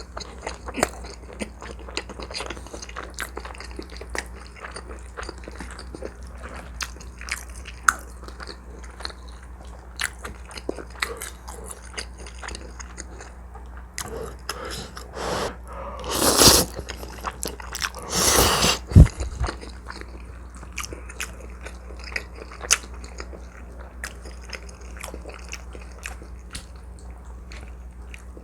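Close-miked chewing and biting of a person eating, with many short wet clicks and smacks. A louder, noisier stretch comes about two-thirds of the way through.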